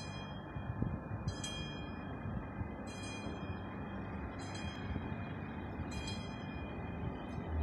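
ÖBB Railjet train rolling past as it pulls out, a steady rumble with a high whine over it. A chime-like ringing tone sounds about every second and a half, dying away each time.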